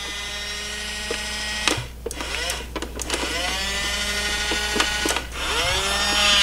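Motorized front-loader arm of a large battery-powered toy garbage truck whirring as it lifts. It runs in two stretches, broken by a click about two seconds in, and the second stretch rises and then falls in pitch.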